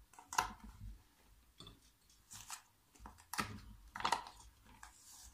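Moulded sweets being pushed out of a flexible silicone mould and set down on a serving plate: a handful of short, soft rubbing and scraping sounds spread through the moment.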